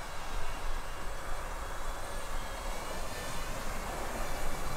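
DJI FPV drone's propellers humming steadily in flight, over a low steady rumble.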